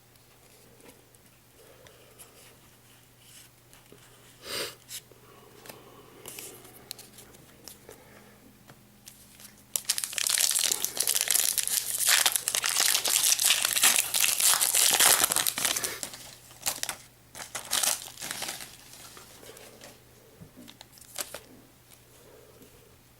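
Foil booster pack wrapper being torn open and crinkled, loud and dense for about six seconds starting about ten seconds in, with scattered soft rustles and clicks before and after.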